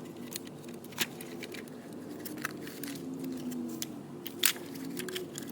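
Scattered sharp clicks, the strongest about a second in and about four and a half seconds in, over a faint steady low hum.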